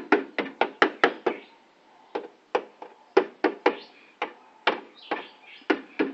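A series of sharp knocks: about seven in quick succession in the first second or so, then a dozen more at uneven intervals.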